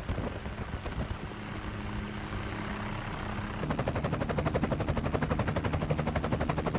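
Helicopter noise recorded aboard during an aerial overflight: a steady rushing noise with a low hum. About two-thirds of the way in it turns into a louder, fast and even rotor chop.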